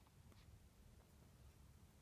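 Near silence: faint low room rumble with a few faint ticks.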